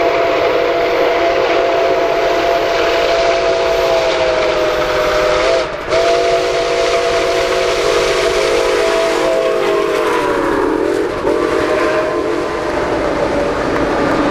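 Nickel Plate Road 765's chime steam whistle blowing long blasts, a chord of several notes with two brief breaks. The pitch drops as the 2-8-4 Berkshire locomotive passes, over the steady rushing noise of the moving train.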